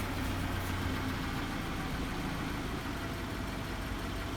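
Scion FR-S's 2.0-litre flat-four boxer engine idling steadily.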